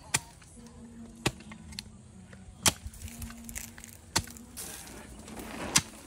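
A long-handled digging tool striking into hard soil, five sharp chops spaced about a second and a half apart.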